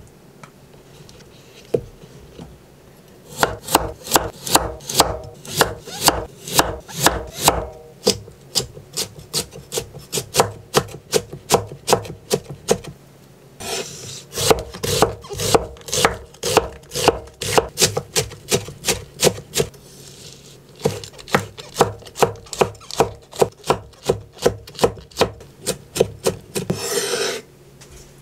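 Kitchen knife dicing carrot and other vegetables on a wooden cutting board: runs of quick, even chops, about three a second, with the blade now and then scraping across the board.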